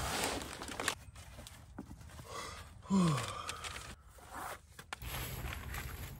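Nylon sleeping bag and clothing rustling as a camper climbs out of bed. A man's short falling groan comes about three seconds in.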